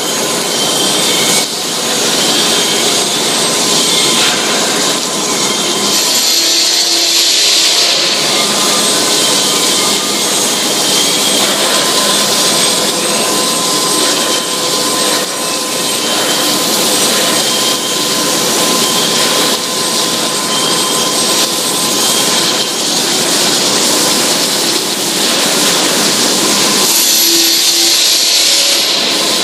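Steel tube mill with a high-frequency induction welder running: loud, steady industrial noise with a strong hiss and a few faint steady hum tones. The sound shifts briefly a few seconds in and again near the end.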